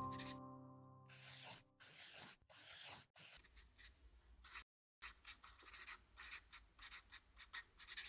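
Dry-erase marker scratching across a whiteboard in short, quick strokes, writing letters and then drawing, with a brief pause about five seconds in. Soft music fades out during the first second and a half.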